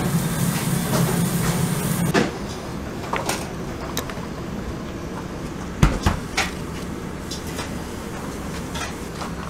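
Sausages sizzling on a hot grill grate, with fat spitting and crackling. The dense sizzle drops away about two seconds in, leaving scattered pops and crackles, and a single low knock just before six seconds.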